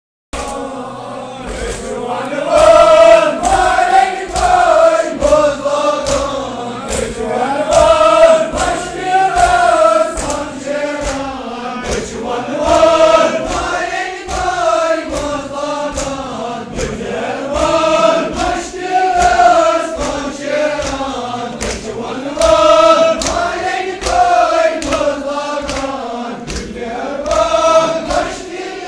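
A crowd of men chanting a Muharram mourning lament (noha) together in repeated rising-and-falling phrases. Under the chant, sharp strikes come about twice a second from hands beating on chests (matam).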